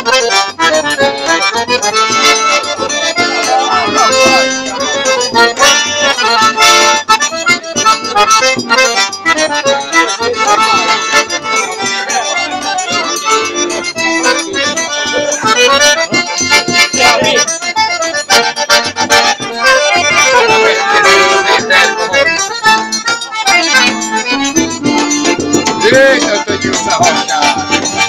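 Piano accordion played live: a tune with a moving melody over a steady rhythmic accompaniment.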